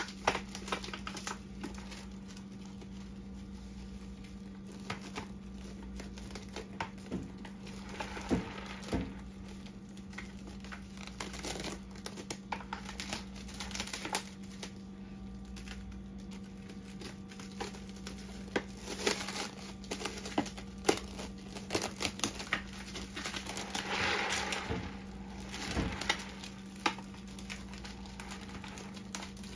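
Plastic wrap being pulled off the roll and stretched and pressed over the rim of a plastic bucket: irregular crinkling and crackling of the film, with a steady low hum underneath.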